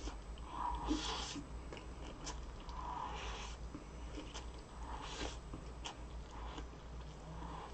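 Close-miked mukbang eating sounds: wet chewing and biting of food, with a louder swell of mouth noise about every two seconds and small clicks in between.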